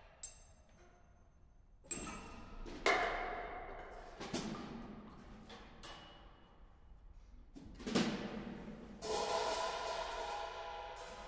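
Drum kit played sparsely in free improvisation: scattered single hits on drums and cymbals, each left to ring out, then a longer sustained ring from about nine seconds in.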